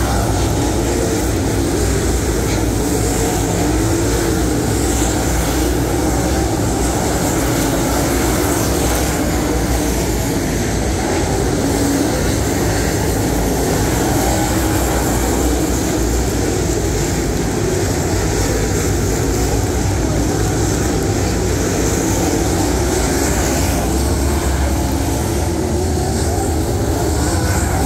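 Dirt late model race cars' V8 racing engines running flat out around a dirt oval. The engine noise is loud and steady, and its pitch wavers.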